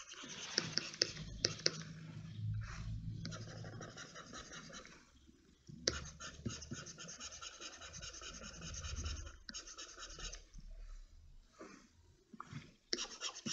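Computer mouse sliding over its pad in long scratchy strokes, with a few sharp button clicks; two long stretches of scraping with a short pause about five seconds in.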